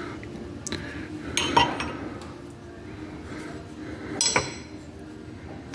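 Steel door-hinge parts and pins clinking and knocking together as they are handled: a few sharp metallic clinks, the loudest about a second and a half in and another pair near four seconds.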